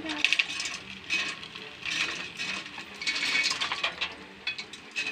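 Dry, skinned split peanuts rattling and clinking as a hand sweeps them off a plate into a pan, in several short clattering bursts.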